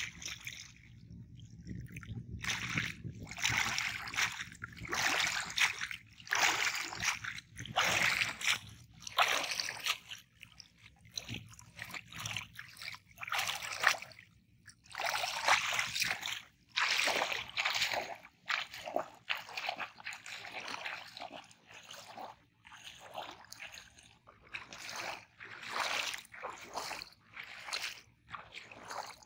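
Shallow water sloshing and splashing around a person's legs and a cast net as they wade, in irregular surges about every second or two.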